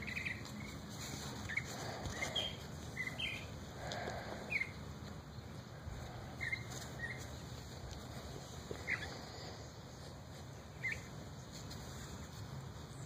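Small birds chirping intermittently: short, high, brief chirps every second or so over a low steady background hum.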